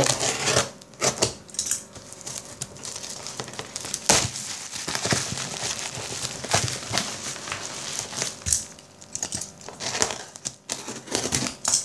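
Black plastic bag wrapping crinkling and rustling as it is handled and pulled open, with irregular sharp crackles, the loudest about four seconds in.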